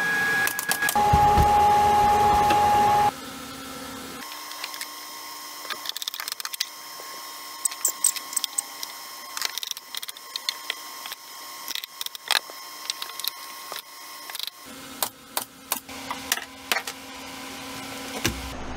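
A loud, steady machine whine for about the first three seconds, then a pneumatic brad nailer firing a long run of sharp, irregularly spaced shots into wood.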